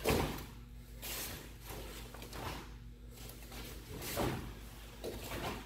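Swishes of martial-arts uniforms and soft thuds of bare feet on foam mats, about five times, as two people kick and strike through a form.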